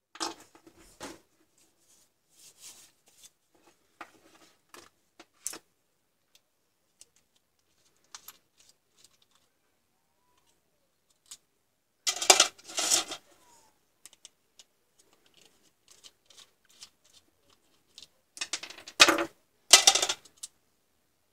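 Handling noise of a Dremel 3000 rotary tool being unscrewed and opened: scattered clicks and light knocks of its plastic housing and a screwdriver, with two louder bursts of clattering, one about midway and one near the end. The tool is not running.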